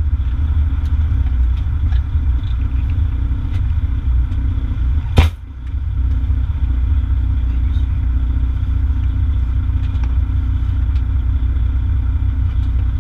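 Fire engine's diesel engine and road noise while driving, a steady low rumble, with one sharp knock about five seconds in.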